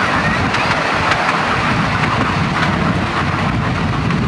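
Steady rumble of a 7.25-inch gauge miniature railway train's carriages running along the track, with a few light clicks.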